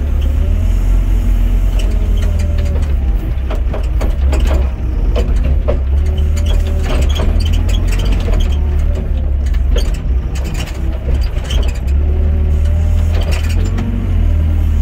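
Excavator's diesel engine running steadily under load, with the hydraulics whining up and down in pitch as the arm swings and lowers the bucket. Scattered clanks and knocks come from the arm and bucket linkage.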